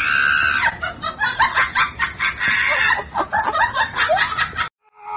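A woman laughing in rapid, high-pitched cackling bursts, with a squeal at the start; it breaks off abruptly near the end.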